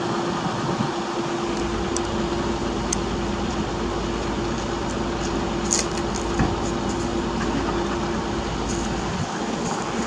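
Machinery running steadily with a constant hum and a steady tone; a low rumble comes in about a second and a half in and drops away near the end, with a few light clicks over it.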